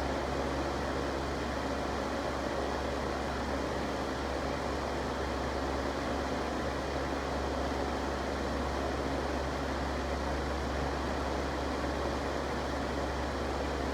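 Electric fan running steadily: an even rush of air over a low hum.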